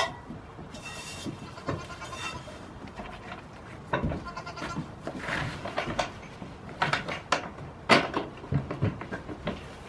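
Young goats bleating in short wavering calls, several times, mixed with sharp knocks on the wooden barn floor, the loudest about eight seconds in.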